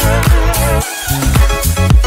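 Upbeat electronic background music with a steady beat and a bass line that drops out briefly about a second in.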